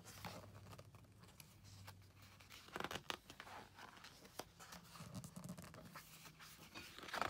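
Pages of a large book being turned by hand: a short paper rustle about three seconds in and another at the end, with light rubbing of a hand on the paper in between.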